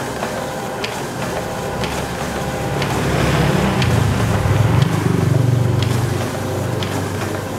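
HP Scanjet Enterprise Flow 7500's automatic document feeder running steadily as it pulls sheets through, with a faint click about once a second. A low rumble swells in the middle and fades again, and it is the loudest part.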